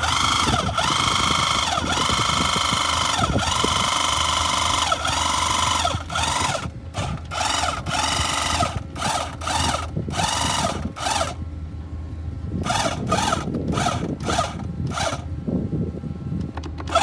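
The pump of a portable hydraulic track pin press, running under load as the ram pushes a pin out of a dozer track link. It is a whine with a pitch that dips about every second and a half. It runs without a break for about six seconds, then comes in short bursts with a pause in the middle, over a steady low hum.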